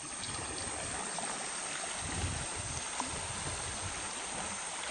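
Fast-flowing, muddy river water rushing past a moving boat, a steady wash of noise with an uneven low rumble.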